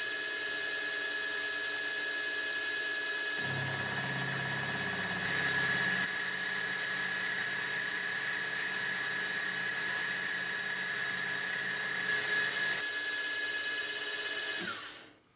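Milling machine running at 1000 RPM with a steady high whine while a resharpened 12 mm carbide end mill takes a 1 mm deep power-fed pass in C45 steel. A lower hum joins a few seconds in and drops away near the end. Just before the end the whine falls in pitch and dies away as the spindle runs down.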